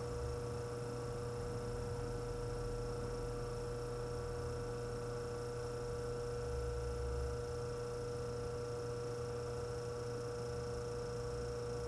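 Antique Frigidaire refrigerator's compressor motor running steadily with a constant electrical hum, just after starting on a test charge of R600 butane; its current draw is still a little high but falling.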